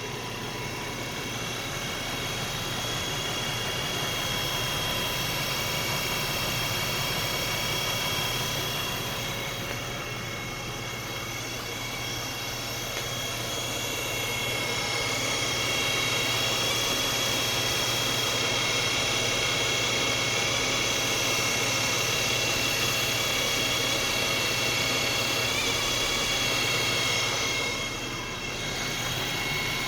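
2011 Nissan Xterra making a steady high-pitched whine, several constant tones over the vehicle's running noise, growing stronger about halfway through and dipping briefly near the end.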